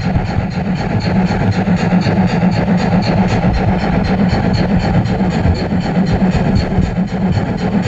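Running noise of an O-gauge model steam train, picked up close by from on board the train: a steady motor and gear hum with an even ticking of about four a second.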